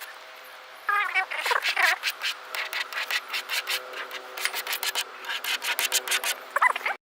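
Quick repeated rubbing or scraping strokes, a few a second, starting about a second in, with a few short chirping glides among them. The sound cuts off abruptly near the end.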